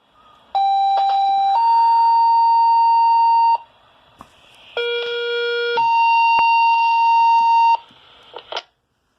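Two-tone sequential paging tones from a fire dispatch radio: a steady tone of about a second, then a higher one held about two seconds, sent twice with a different first tone each time. These are the alerting tones that set off a fire department's pagers for a call. A short radio crackle follows near the end.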